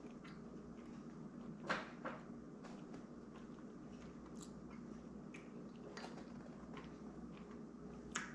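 Quiet eating at a table: a few soft clicks and taps, the loudest just under two seconds in, over a steady low hum.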